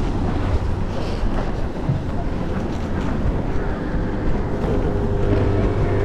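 A boat's motor running, with wind blowing across the microphone. The engine's steady tones come through more clearly about five seconds in.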